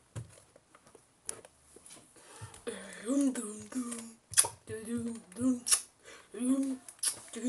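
Handling noises from paper-and-tape crafting: soft rustling and several sharp clicks. From about two and a half seconds in, a low voice hums in short notes between the clicks.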